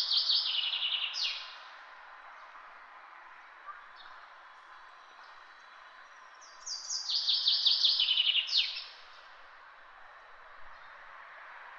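A songbird sings a fast, trilled phrase that steps downward in pitch and ends in a quick sweep. It sings it twice, once at the start and again about seven seconds in, over a steady background hum of distant city noise.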